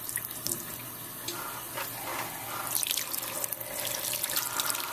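Water running and splashing, with irregular drips and spatters over a steady flow, like a tap or shower running.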